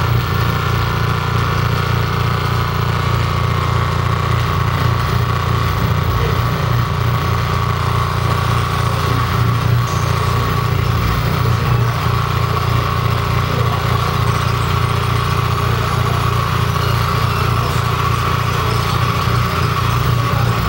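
Loud live electronic noise music: a dense, unbroken wall of sound with a heavy low buzz, a steady hum near 1 kHz and glitchy hiss above it.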